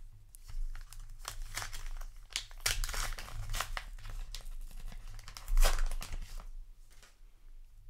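Foil trading-card booster pack wrapper crinkling and tearing as it is handled and pulled open, a run of short crackles with the loudest burst about five and a half seconds in.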